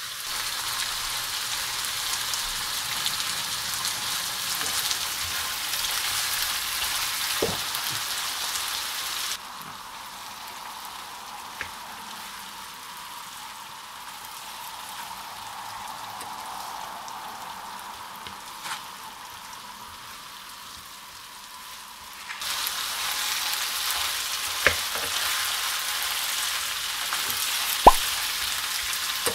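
Chicken pieces sizzling as they fry in oil in a non-stick pan, stirred with a wooden spatula. The sizzling drops away for about thirteen seconds in the middle, leaving a quieter stretch with a few faint clicks, then comes back with a couple of sharp spatula taps on the pan near the end.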